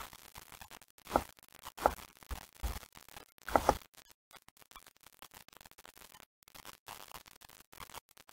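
Four short, faint knocks about a second apart, then only low room noise for the second half.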